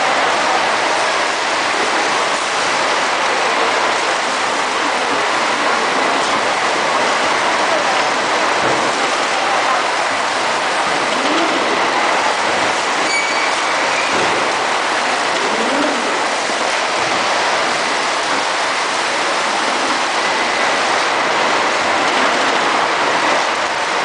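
Steady machine noise of a robotic palletizing line, with robot palletizers and roller conveyors running, and a faint steady whine over a dense, even rumble.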